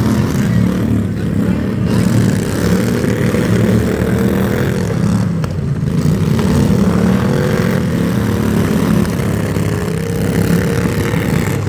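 A loud engine running steadily, its pitch drifting slightly up and down.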